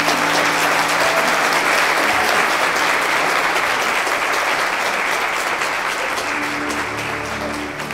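Wedding congregation applauding steadily, many hands clapping at once, with soft background music underneath. Near the end the clapping thins and the music comes up.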